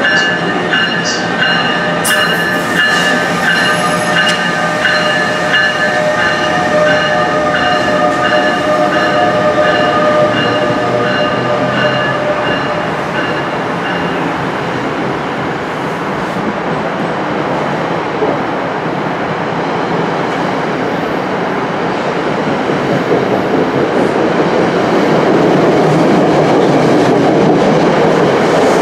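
NJ Transit electric commuter train passing close alongside a station platform: a steady rumble and rattle of wheels on rail, growing louder near the end. Through the first half an evenly pulsing ringing tone sounds over it and stops about halfway.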